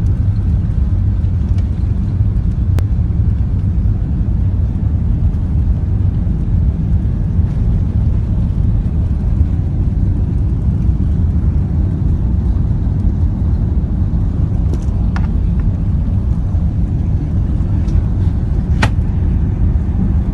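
Airbus A380 taking off: a steady, loud low rumble of its jet engines that holds even throughout.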